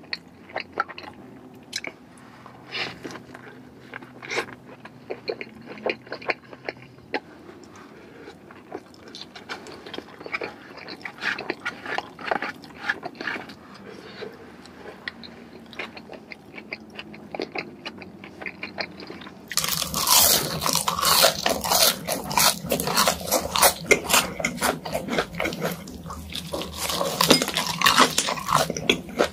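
Close-miked eating sounds: wet, soft chewing and biting of chili cheese fries and burger, with small clicks and smacks. About two-thirds of the way through it switches abruptly to louder, crisper crunching and chewing of fried chicken and fries.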